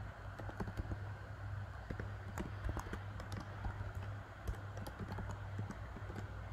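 Typing on a computer keyboard: irregular, quick key clicks over a steady low hum.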